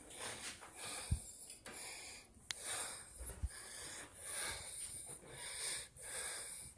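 A person breathing close to the microphone, about one breath a second. A low knock comes about a second in and a sharp click near the middle.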